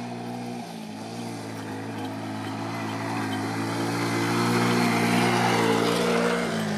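Small motorcycle engine running at a low, steady speed as the bike rides slowly past, growing louder toward the middle and then fading.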